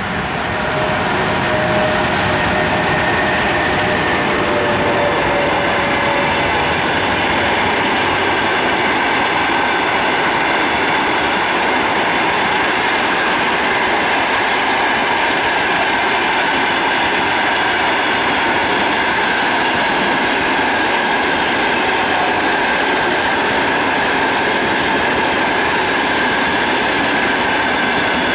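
Passenger train hauled by an EP1M electric locomotive running past close by, growing louder over the first two seconds and then holding at a steady level as the coaches roll past. The sound is a continuous rush of wheels on rail, with faint steady high tones in it.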